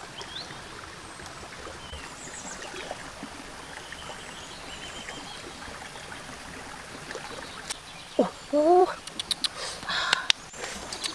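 Steady outdoor ambience of flowing stream water with a few faint bird chirps. Near the end a voice says "oh", followed by a quick run of sharp clicks.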